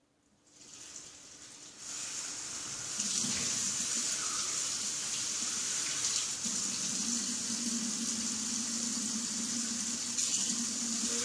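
Kitchen tap running into a sink while a bowl is rinsed out. The water comes on softly and builds to a steady full flow within about two to three seconds.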